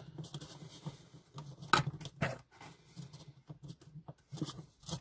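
A few small clicks, taps and rustles of a small screwdriver and cables being handled at wiring terminals. The sharpest clicks come about two seconds in and again near the end.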